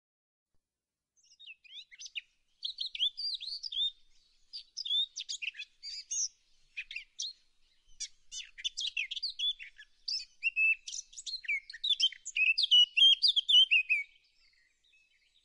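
Songbirds chirping and twittering in quick, high phrases, starting about a second in and stopping shortly before the end.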